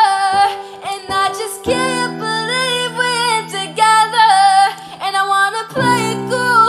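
A woman singing a slow melody over an acoustic guitar, with a chord struck about two seconds in and another near the end, each left to ring.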